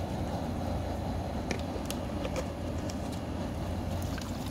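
Propane burner under a large boiling pot, running with a steady low roar, with a few faint ticks about a third of the way in.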